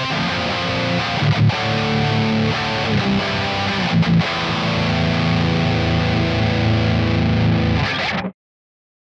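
Jackson JS32 electric guitar played through distortion on its neck humbucker, a distorted passage of changing notes. It stops abruptly near the end.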